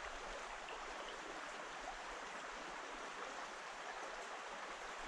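Small mountain creek running over stones: a steady, faint rush of flowing water.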